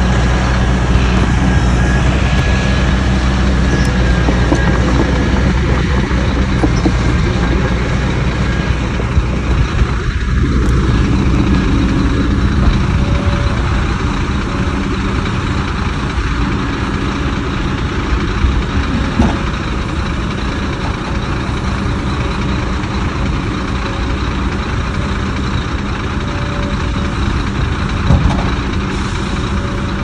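Heavy diesel construction machinery running: a steady low engine drone, loudest over roughly the first ten seconds and then easing a little, with a short knock near the end.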